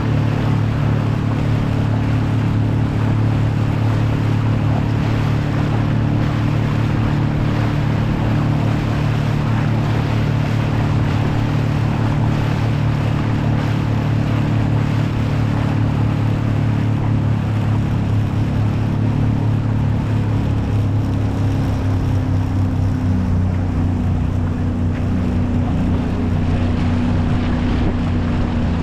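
Outboard motor of a small aluminium boat running steadily under way, with water rushing along the hull. Its engine note shifts slightly in the last several seconds as the boat turns.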